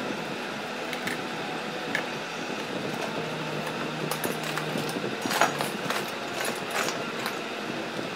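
Small clicks and rustles from a copper-wound transformer bobbin and its insulating paper being handled, over steady background noise. The clicks come most thickly between about four and seven seconds in.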